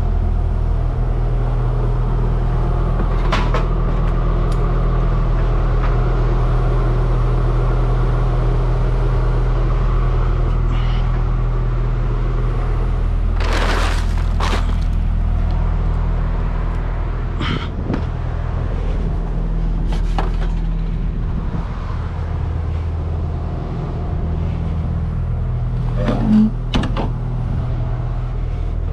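Steady low hum of an idling truck's diesel engine, heard from the back of the box body. Over it come a few short knocks and, about fourteen seconds in, a brief rustle and bump as a bag and things in the cargo area are handled.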